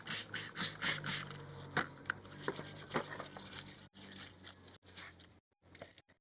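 Plastic bag of hardwood sawdust substrate being handled while spawn is spread into it by hand: irregular crinkling, rustling and light taps, thinning out to a few scattered taps near the end.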